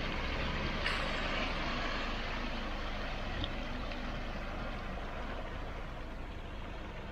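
A Jeep's engine running steadily, slowly getting a little quieter, with one brief click about a second in.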